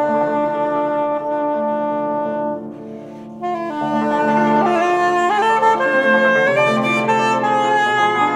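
Instrumental background music: a melody of long held notes over sustained lower chords, dropping away briefly about three seconds in before coming back.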